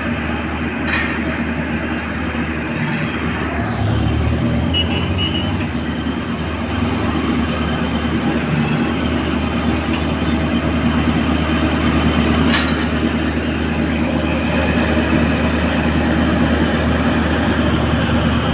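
Crane's engine running steadily under load, getting a little louder about four seconds in, with two sharp clicks from the machinery.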